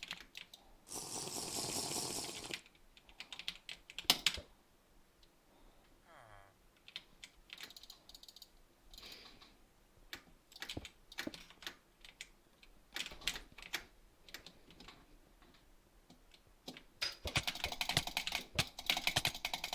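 Irregular sharp clicks and taps, with a short burst of noise about a second in and a dense run of rapid clicking over the last three seconds.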